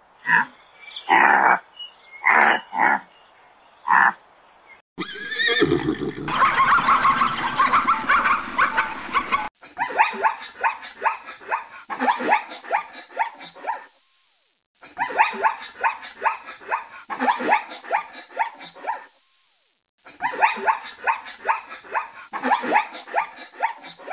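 Zebras calling in rapid, yelping, bark-like brays, in three bouts of about five seconds each over the second half. Before them come several short separate animal calls, then a denser stretch of calls.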